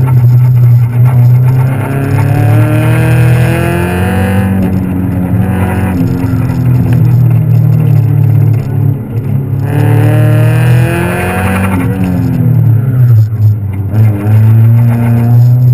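Car engine and exhaust heard from the open cockpit during an autocross run. The revs climb and fall back about four times as the driver accelerates and lifts between the cones.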